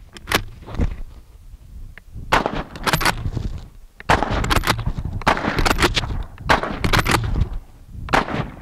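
Ross MkIII straight-pull rifle in .303 firing several shots in fairly quick succession, each a sharp crack, some followed by a short echo.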